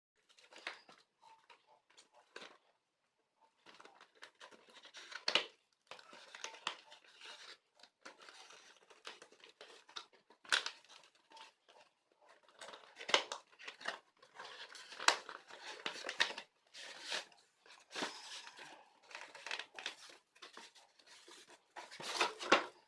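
Product packaging being torn open and handled by hand: irregular tearing, crinkling rustles and sharp clicks, with a short pause about three seconds in.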